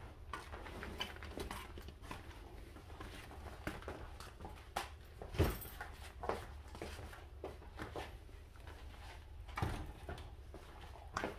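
Scattered knocks, clicks and rustles of water-ski gear and bags being handled and set down, with a louder thump about five and a half seconds in and another near ten seconds, over a low steady hum.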